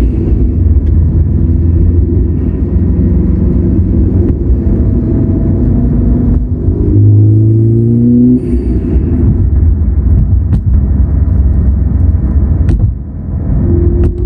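2016 Subaru WRX STI's turbocharged flat-four engine running while the car is driven, its pitch rising under acceleration a little past halfway and again near the end. A strange metallic whirring comes with acceleration, and the owner finds it more prominent when he lifts off the gas.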